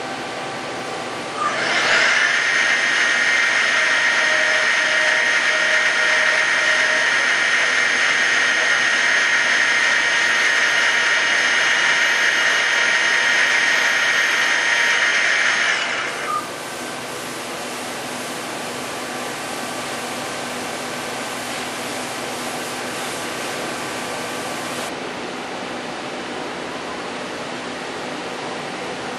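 A 14-flute shell mill spinning at 4000 rpm, thread-milling a buttress thread into aluminum on a CNC lathe: a loud, steady, high-pitched whine with cutting hiss. It starts about a second and a half in and stops sharply about 16 seconds in. A quieter steady machine noise carries on after it and drops a little near the end.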